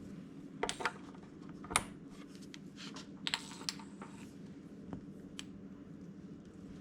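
Scattered clicks and rattles of XLR cable connectors being handled and plugged in between a mixer and an amplifier, the sharpest click about two seconds in, over a faint steady background hum.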